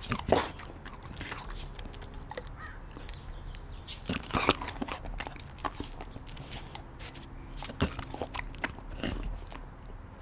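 An American Eskimo dog snapping bites of food off a fork and chewing, heard as a scatter of short, sharp clicks and snaps, the loudest about a second in, at about four and a half seconds, and near eight seconds.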